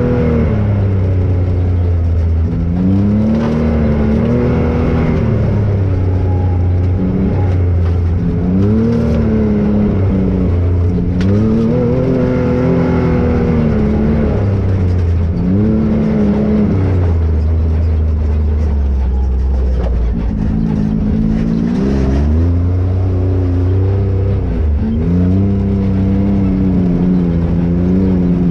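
Can-Am Maverick XRC 1000 side-by-side's V-twin engine running under load, the revs rising and falling every few seconds as the throttle is worked.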